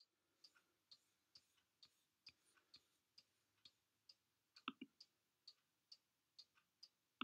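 Faint, even ticking, a little over two ticks a second, with a louder double knock about two-thirds of the way in.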